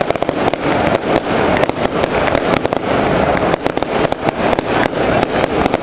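Fireworks going off, golden shells bursting with a dense, irregular run of sharp cracks and pops, many to the second, over a constant rumble.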